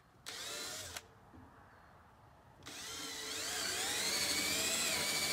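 Cordless drill boring a hole: a short burst of the motor, then from about two and a half seconds in a longer run whose whine wavers up and down in pitch as the bit cuts under load.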